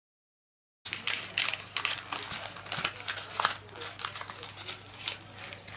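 Magazine pages being crumpled up by hand: a dense run of paper crinkling and crackling that starts about a second in.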